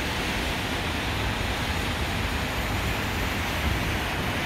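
Embraer E175LR jet accelerating down the runway on its takeoff roll, its two GE CF34-8E turbofans at takeoff power heard from afar as a steady, even rushing noise with a low rumble.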